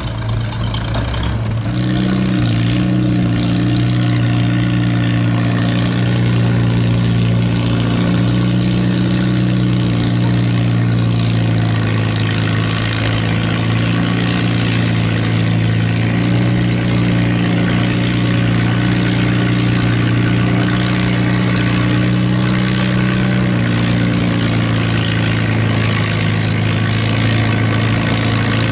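Antique tractor engine pulling a weight sled: a steady engine note that rises in pitch about two seconds in and then holds under load, shifting slightly a couple of times.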